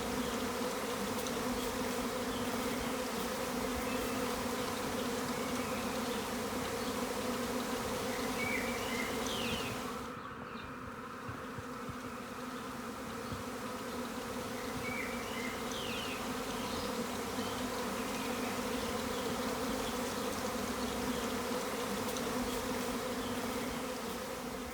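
A swarm of thousands of honey bees buzzing in flight, making a dense, steady hum. The hum drops slightly about ten seconds in.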